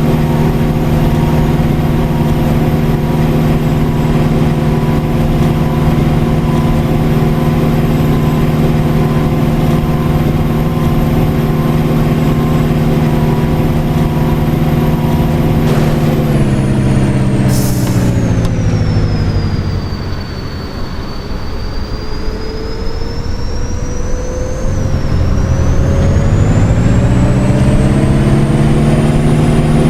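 Double-decker bus heard on board: the engine runs steadily, then about halfway through its pitch falls away as the bus slows, with a short hiss of air brakes, and near the end the pitch climbs again as the bus pulls away.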